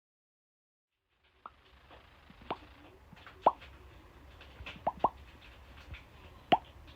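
Six short, hollow pops, each rising quickly in pitch like a drop falling into water, spaced about a second apart over faint room tone.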